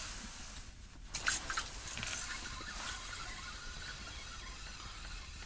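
Handling noise of ice fishing tackle: rustling and a few quick light clicks as a spinning reel and line are worked, with a small cluster of clicks a little after one second in.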